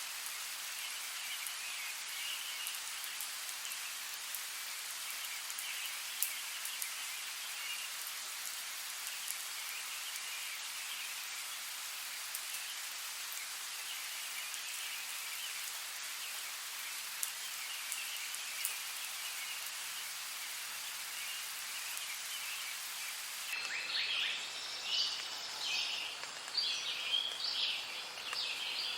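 Steady rain falling, a constant hiss with a few faint calls beneath it. About three-quarters of the way through it cuts off abruptly and is replaced by loud, rapid, high chirping calls.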